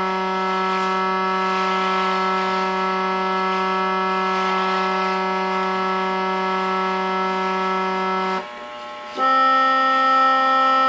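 Organ holding one reedy low note steadily for about eight seconds. After a short break, a higher note is held.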